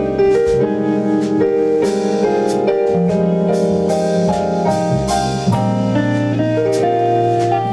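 Jazz band playing an instrumental passage: a keyboard plays sustained, changing chords while a drum kit keeps time with light, regular strokes.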